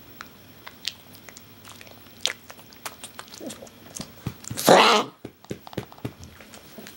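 A pug coughing: a run of small clicking throat and mouth sounds, then one loud, harsh cough about four and a half seconds in. The owners think the coughing fit might be kennel cough.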